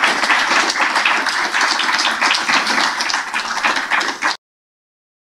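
Audience applauding, many hands clapping, cut off suddenly about four seconds in.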